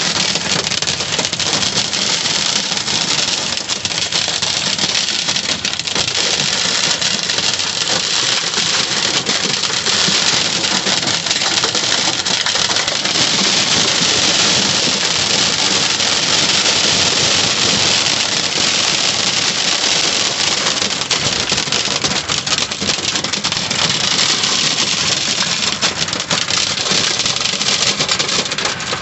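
Torrential supercell rain beating on a car, a dense steady hiss of drops, heaviest about halfway through.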